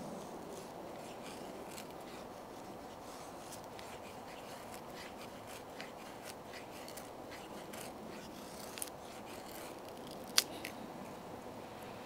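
Knife blade shaving thin curls off a wooden stick to make a feather stick for fire-lighting: a series of short scraping strokes. There is one sharp click a bit after ten seconds, the loudest sound, and a smaller one shortly before it.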